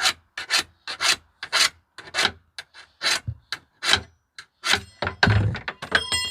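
Flat metal file stroked by hand along the cutting edge of a steel rotary lawnmower blade, with about two rasping strokes a second to sharpen an edge rounded over by stone chips. Near the end the blade rings with a clear metallic tone.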